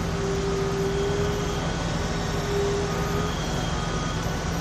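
Steady low drone of fire apparatus engines running at a fire scene. A single steady higher tone rides over it, breaking briefly and stopping about three seconds in.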